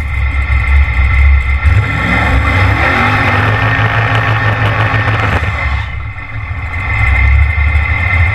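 Race engine of an S10 drag truck idling loudly and roughly, with a rev that rises about two seconds in, while the truck backs up after its burnout.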